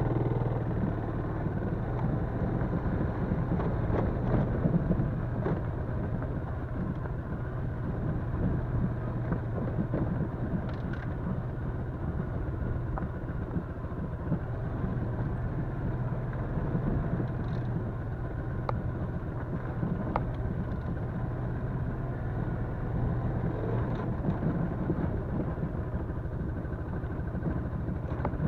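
Yamaha Crypton-X underbone motorcycle's single-cylinder four-stroke engine running steadily, with a few faint clicks here and there.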